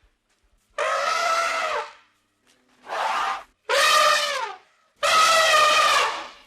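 An animal calling four times in loud, drawn-out, high-pitched cries, each about a second long with short pauses between.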